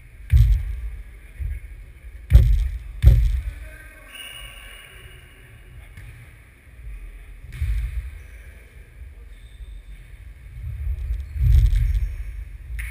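Futnet (nohejbal) ball kicked and bouncing on a wooden sports-hall floor: a few sharp, echoing thumps, two close together about two and a half and three seconds in, over a low rumble.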